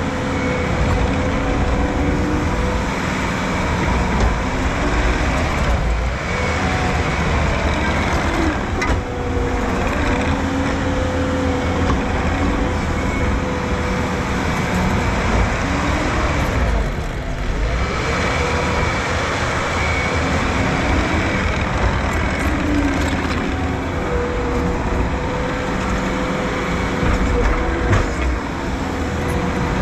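Heavy construction machine's diesel engine running steadily, its pitch wavering slightly as it works under load.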